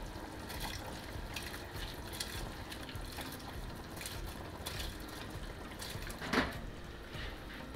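Washed rice being pushed with a metal spoon from a glass bowl into a pot of boiling tomato liquid: soft splashing and bubbling with light scraping and clicking of the spoon against the glass, and one louder knock near the end.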